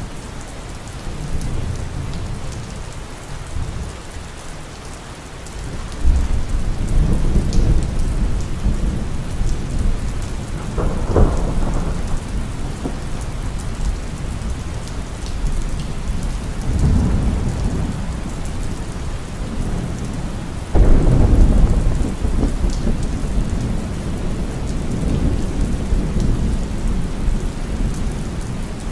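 Steady rain with rolling thunder. Low rumbles start suddenly about six seconds in and again about twenty-one seconds in, with a sharper crack near eleven seconds.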